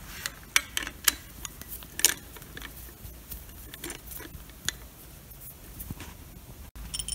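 Scattered light metallic clicks and rattles, irregular rather than rhythmic, of a hand socket tool working on the connecting-rod cap bolts of a Toyota 4A-GE engine's bottom end.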